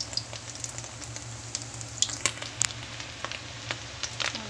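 Oil sizzling and crackling as an alamang shrimp fritter (okoy) fries in a stainless steel wok: a steady hiss with irregular sharp pops, over a low steady hum.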